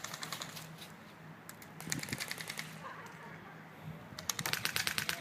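Airsoft guns firing full-auto in three short bursts of rapid, evenly spaced clicking shots, the last starting about four seconds in.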